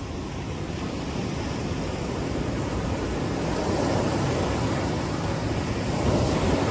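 Ocean surf breaking and washing up a sandy beach, a steady low rushing rumble that swells slightly, with wind buffeting the microphone.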